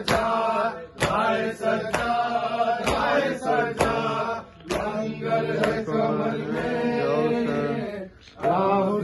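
A group of men chanting an Urdu noha in unison, with sharp strikes of matam (open hands beating on chests) about once a second keeping the beat. The chant breaks off for a moment near the end and then starts again.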